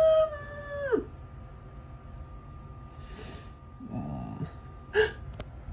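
Animated film soundtrack heard off a TV: a long, held high call falls away about a second in. Quieter breathy sounds, a low rumble around four seconds and a click near five seconds follow. A faint steady whine sits underneath.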